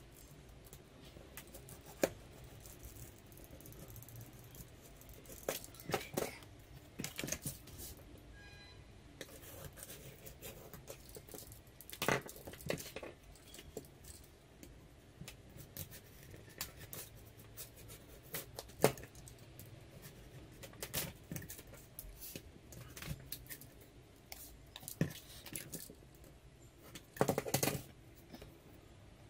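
Snap-off utility knife cutting thin balsa sheet, with scattered short clicks and scrapes as the knife and wood strips are handled on a tabletop. A denser cluster of these sounds comes near the end.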